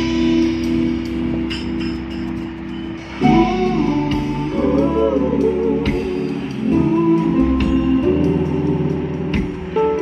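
Music with guitar and singing playing through a car's audio system being sound-checked; about three seconds in it gets louder and fuller, with the bass coming in.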